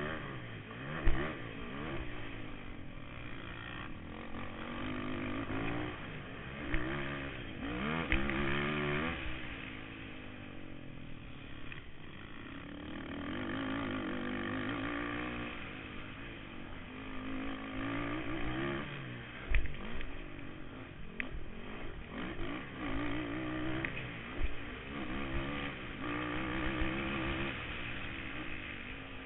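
Kawasaki KFX 450R quad's single-cylinder four-stroke engine revving up and down repeatedly under hard racing throttle over a dirt motocross track. Several sharp knocks come through as the quad hits bumps, the loudest about a second in and again around two-thirds of the way through.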